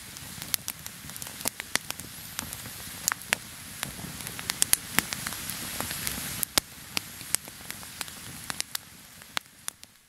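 Wood campfire burning, with frequent sharp crackles and pops over a soft hiss. It fades away near the end.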